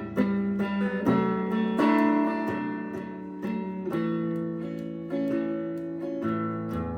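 Acoustic guitar picking and strumming chords in an instrumental passage of a slow song, with no singing.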